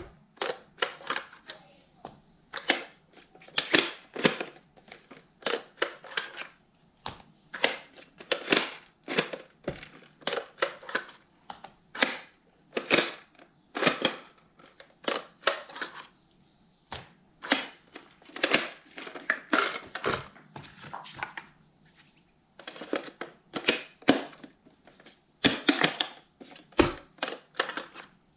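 Irregular plastic clicks, clacks and knocks as a Coffee Cannon Pod Pistol, a gun-shaped plastic K-Cup pod dispenser, is handled: its parts worked, its magazine taken out and K-Cup pods set down on a wooden counter.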